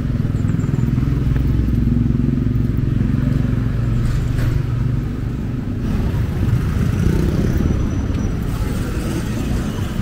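Street traffic, with a motor vehicle engine running close by: a steady low engine hum for the first six seconds or so, then a rougher mix of passing traffic.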